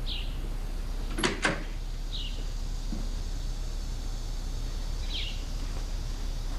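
Two sharp clicks or knocks in quick succession, about a quarter-second apart, over a steady background, with a small bird chirping briefly three times.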